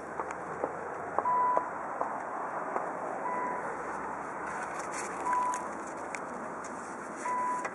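A car's electronic warning chime beeping at one steady pitch, four short beeps about two seconds apart, with faint clicks and rustle of handling around the open car.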